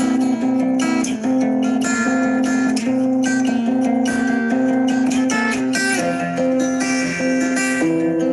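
Instrumental background music led by guitar: held notes over a steady run of plucked attacks.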